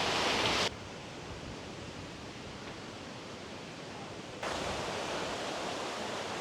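Steady rushing of river water. It drops abruptly in level under a second in and comes back up about four and a half seconds in.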